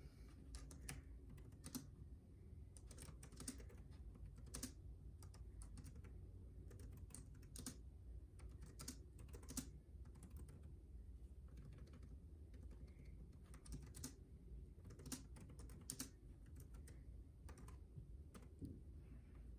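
Typing on a small Bluetooth keyboard with round keys: faint, irregular key clicks, several a second in quick runs with short pauses between.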